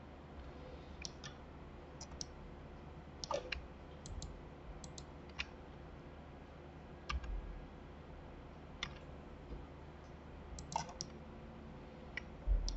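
Irregular, scattered clicks of a computer mouse and keyboard as a 3D mesh is edited, over a faint steady room hum.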